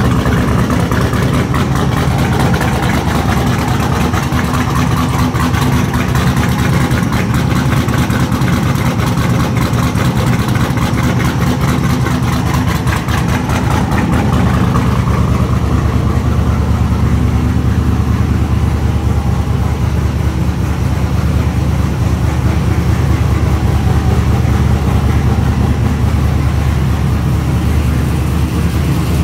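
Twin-turbocharged fifth-generation Chevrolet Camaro engine idling steadily on its first run after the turbo build.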